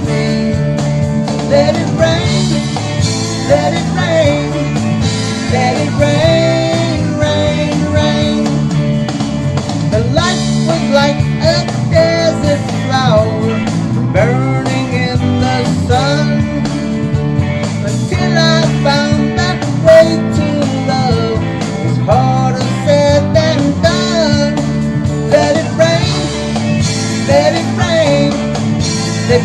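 A man singing over a rock backing track with guitar.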